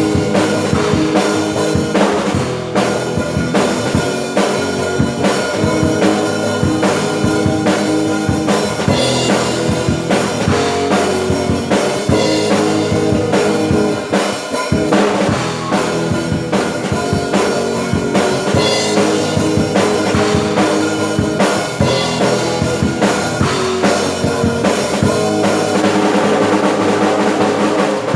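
Worship song played by a band with a full drum kit: a steady beat of kick drum, snare and rimshots over sustained pitched instruments.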